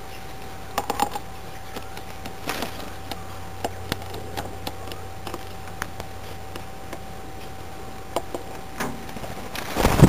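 Small songbirds pecking seed on a feeder tray close to the microphone: scattered sharp taps over a faint steady tone. Near the end comes a louder, longer rush, as of wings, as a bird flies off.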